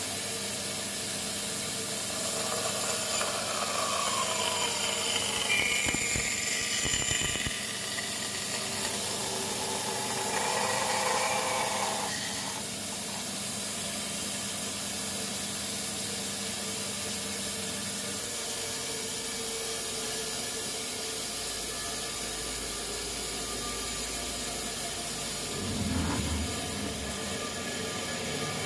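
Steady hissing noise of power-tool work on wood, changing in tone a few times.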